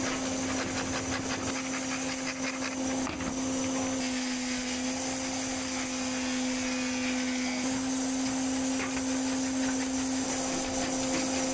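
Belt-driven scroll saw with a reciprocating blade, running with a steady hum. For the first few seconds its blade saws through a plywood board with a fast, even chatter; after that the motor and drive hum on alone.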